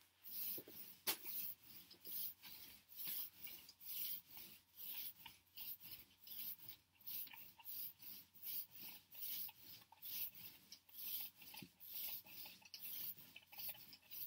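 Whiteboard marker squeaking and scratching across a whiteboard in short strokes, about two a second, as a line of words is written.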